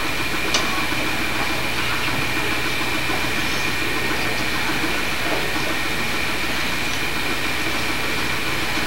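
Steady hiss and low electrical hum of an old home-video camcorder recording, with a faint high whine running through it and a small click about half a second in.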